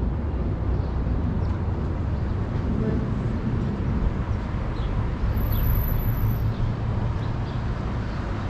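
Downtown city street ambience: a steady low rumble of traffic.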